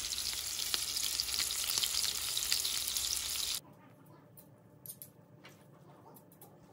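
Shrimp and portobello mushroom burger patties sizzling steadily in hot oil in a frying pan under a mesh splatter screen. The sizzle cuts off abruptly about three and a half seconds in. After that it is quiet apart from a few faint clicks as coleslaw is spread onto bread with forks.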